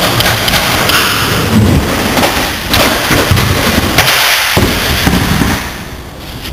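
Skateboard wheels rolling loudly over a concrete bowl, with several sharp clacks and knocks of the board; the rolling noise drops away about five and a half seconds in.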